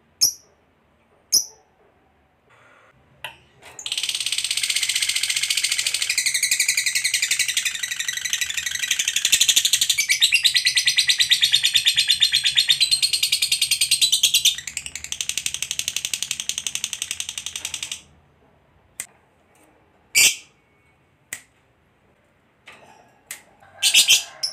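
Lovebird's long, rapid chattering trill (the "ngekek panjang" prized in contest lovebirds), running unbroken for about fourteen seconds and getting quieter partway through, with a few short chirps before and after it.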